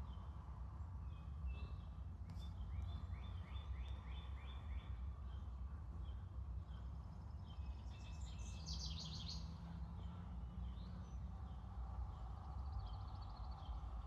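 Small songbirds chirping and twittering over a steady low background rumble: a quick series of short falling chirps, then a fast trill a few seconds later and a fainter one near the end.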